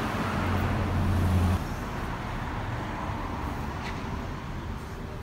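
City street traffic noise: a deep vehicle engine hum that stops abruptly about a second and a half in, leaving a quieter steady traffic hiss.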